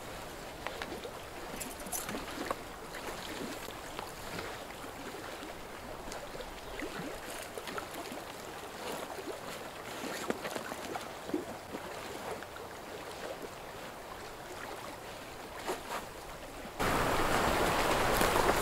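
Small waves lapping at a lakeshore under a steady outdoor hush, with scattered small clicks and rustles of a backpack being handled. Near the end the sound cuts suddenly to a louder, even rush of wind.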